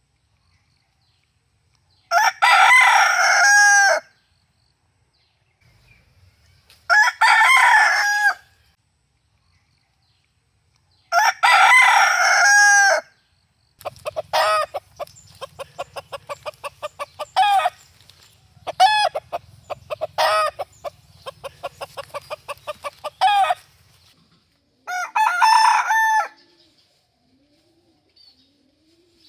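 A rooster crowing: four long, loud cock-a-doodle-doos spaced several seconds apart. In the middle stretch there is a fast run of short clucks, several a second, broken by a few longer calls.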